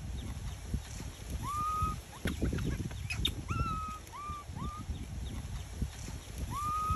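Baby macaque cooing: five short clear calls in a loose series, each rising quickly and then held level, one longer than the rest about one and a half seconds in. A low rumble lies beneath.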